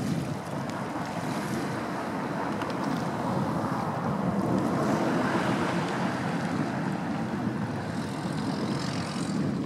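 Wind buffeting the microphone over choppy harbour water, a steady rushing noise with a faint low hum underneath.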